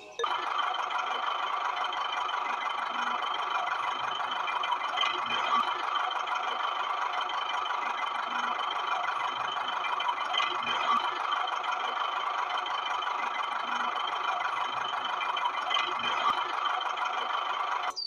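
Steady, unbroken whirring of a toy tractor's small electric motor and gears running at constant speed, starting and stopping abruptly.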